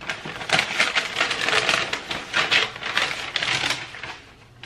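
Packaging crinkling and rustling as it is handled: a dense run of quick crackles that dies away about four seconds in.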